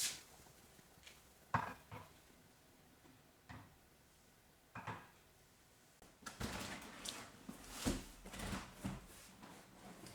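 Household tidying sounds: a few separate knocks and clicks of things being handled and set down, then a busier stretch of handling and clatter with several knocks in the last few seconds.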